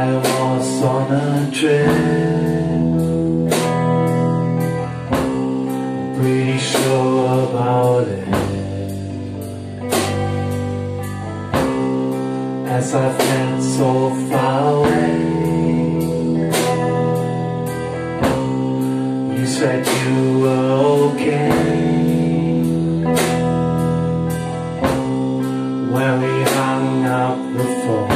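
Live rock band playing: semi-hollow electric guitar, electric bass and drum kit keeping a steady beat, with a voice singing over them.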